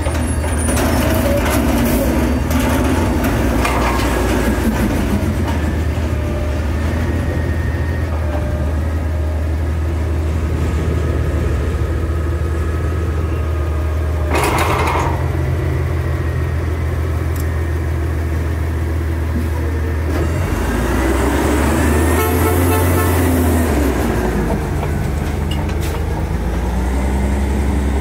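Engine of a 2016 Autocar front-loader garbage truck running steadily, with a short burst of air hiss about halfway through. The engine speed rises and falls again about three-quarters of the way through.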